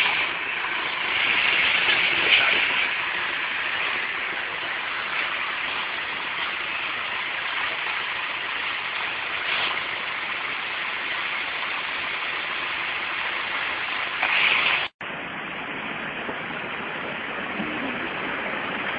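Steady rushing noise of heavy rain and running floodwater, cut off for an instant about fifteen seconds in and then continuing a little quieter.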